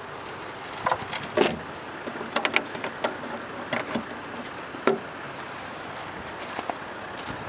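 Aluminium storage case being handled: its lid shut and its catch snapped closed, a series of metal clunks and clicks over about four seconds, the loudest about a second and a half in and again near five seconds.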